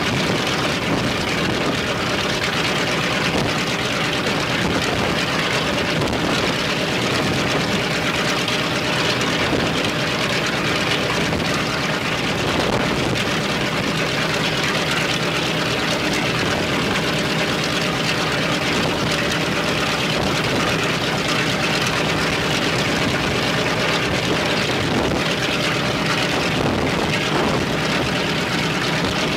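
Left engine of an Ilyushin Il-14T, a Shvetsov ASh-82T 14-cylinder twin-row radial, running steadily on the ground.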